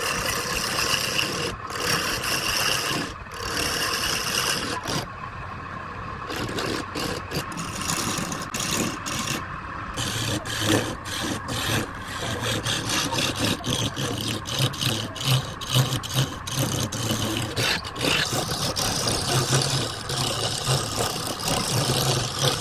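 Wood lathe running while a turning tool cuts the spinning wood: a continuous uneven scraping full of short ticks, over a low motor hum that grows stronger about halfway through.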